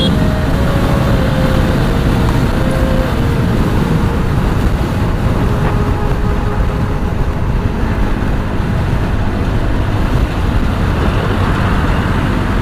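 Wind rushing over the microphone of a motorcycle at speed, with the Apache 4V's engine note underneath slowly dropping as the bike slows down from high speed.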